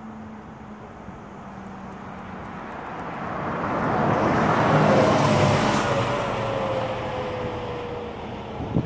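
A coach bus drives past close by on the road. Its engine and tyre noise swells to a peak about halfway through, then fades. A whine drops slightly in pitch as it goes by.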